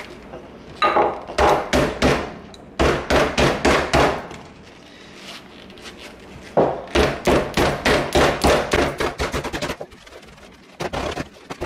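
A mallet pounding a wet leather catcher's mitt during a hot-water box break-in, in four quick runs of about five blows a second with short pauses between.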